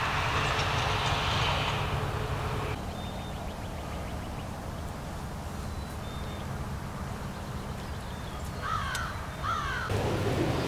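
Outdoor wind noise and low rumble, then two short harsh bird calls about a second apart near the end.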